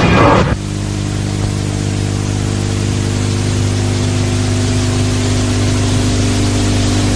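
A steady low drone of several fixed pitches over a light hiss, starting abruptly about half a second in as the music before it cuts off.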